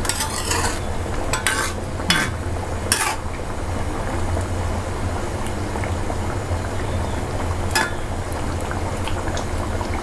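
Thick panang pork curry bubbling in a pot over high heat, with a ladle stirring and knocking against the pot a few times in the first three seconds and once more near the end.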